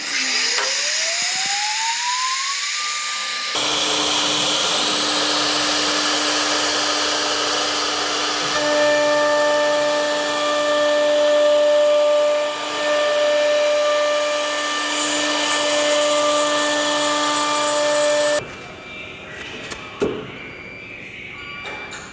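CNC router spindle spinning up with a rising whine over about three seconds, then running steadily while the bit carves a 3D relief into MDF. The cutting sound cuts off about eighteen seconds in.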